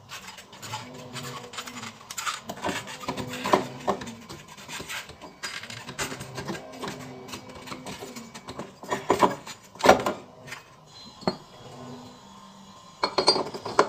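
Metal parts of a scooter's CVT clinking, scraping and knocking as the drive belt and rear clutch pulley are worked onto the shaft by hand. The loudest knocks come about nine and ten seconds in, with another cluster of clinks near the end.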